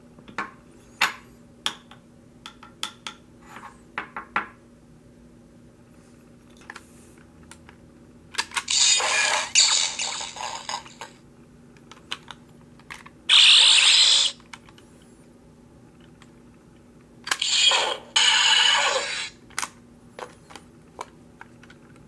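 Hands fitting a metal power coin into a plastic toy Power Morpher: a run of light clicks and taps, then three louder, harsh scraping bursts of one to two seconds each, and a few more clicks near the end.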